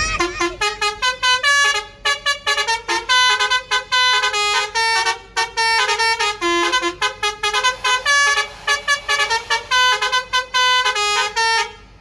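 Multi-tone "telolet" air horn of a Mercedes-Benz intercity bus playing a quick tune of many short notes that jump between pitches, with a couple of brief breaks, stopping just before the end.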